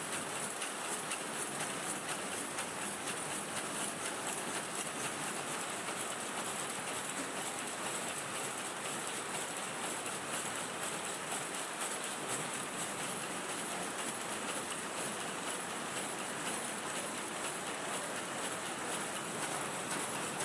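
Matchbox filling and packing machinery running: a steady, rapid mechanical clatter with a high hiss, unchanging throughout.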